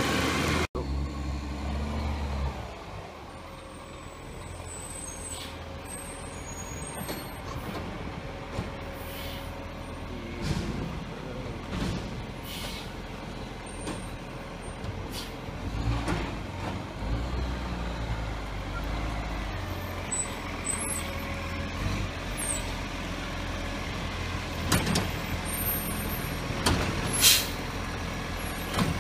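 Iveco Acco side-loader garbage truck's diesel engine running as the truck moves along the street, with several short air-brake hisses, the loudest near the end.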